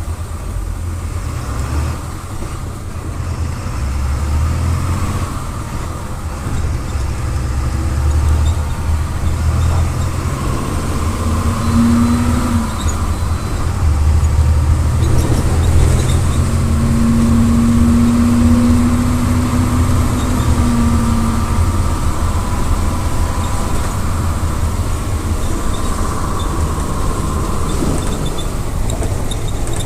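MWM 6.12 TCE six-cylinder turbo-diesel of a VolksBus 17-230 EOD city bus running under way, its note building and easing off as the bus pulls and slows. A droning tone comes in briefly about twelve seconds in and again for a few seconds past the middle.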